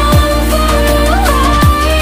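Background music: a held, bending melody over deep bass hits that drop in pitch, twice.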